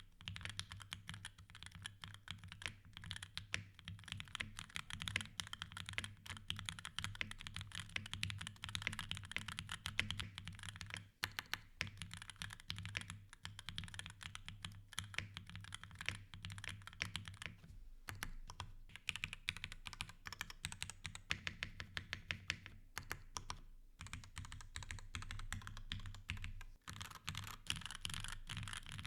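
Fast, continuous typing on a mechanical keyboard with Gateron G Pro 2.0 Yellow linear switches and GMK keycaps: a dense patter of keystrokes with a few brief pauses.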